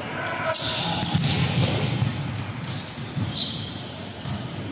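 Volleyball play on an indoor court: sneakers squeaking briefly and repeatedly on the court floor, with footfalls and a sharp knock about three seconds in, all echoing in a large hall.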